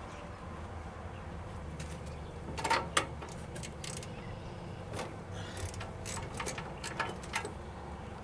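Scattered metallic clicks and knocks of hand tools at work on the engine while the spark plugs are being removed, the loudest pair about three seconds in and a run of lighter ones later, over a steady low hum.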